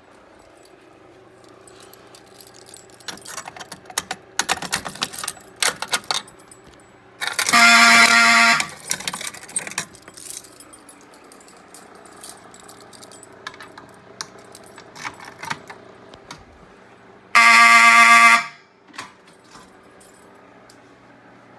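Fire alarm horn sounding in two short blasts, each about a second long and about ten seconds apart, as devices are tripped and the system resets during an audible walk test. Scattered clicks and rattles come between the blasts, heaviest in the first half.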